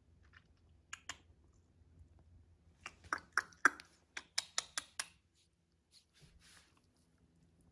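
A pair of sharp clicks, then a quick, uneven run of about a dozen sharp clicks over two seconds, most of them in a burst from about three to five seconds in.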